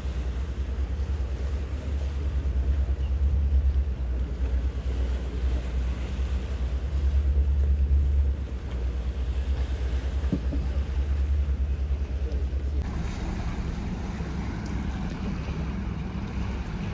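Low, steady engine rumble of a motor yacht underway. About thirteen seconds in it changes abruptly to a higher hum with more hiss.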